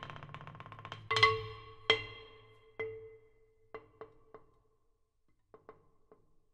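Marimba: a fast flurry of strokes gives way to a loud ringing stroke about a second in, then single strokes further and further apart, each bar ringing and dying away.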